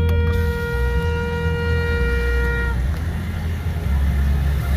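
A plastic toy trumpet (baja) blown in one long steady note that stops about two and a half seconds in, over a low rumble of street traffic.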